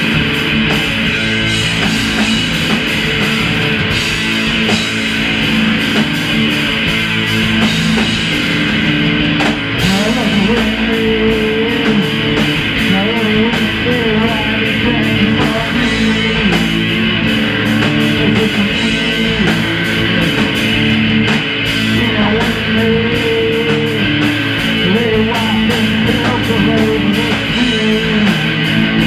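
Live rock band playing loud, with two electric guitars and a drum kit. A man's voice sings along from about ten seconds in.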